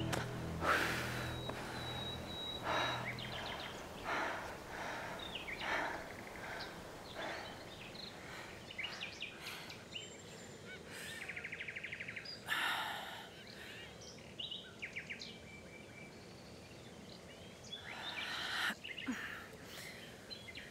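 A woman breathing hard in short, repeated breaths, as after a run. Birds call in the woods around her, with a fast trill about eleven seconds in.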